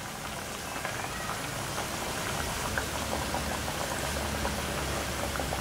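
Cabbage-and-onion tikkis deep-frying in hot oil, the oil sizzling and bubbling steadily with fine crackles. A low hum runs underneath, stronger in the second half.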